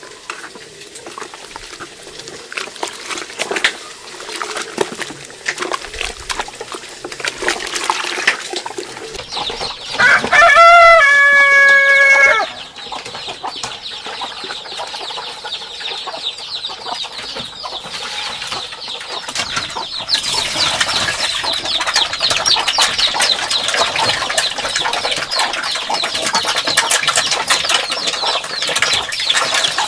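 A rooster crows once, about ten seconds in, a single call of roughly two and a half seconds that is the loudest sound here. Around it come scraping and stirring sounds of a scoop mixing dry feed in a plastic bucket, and in the last third a denser, louder rustling.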